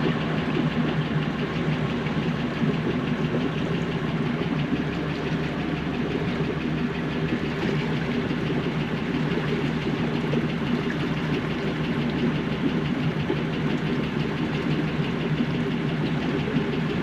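Boat engine running steadily while cruising, an even rumble with a fine rapid pulse.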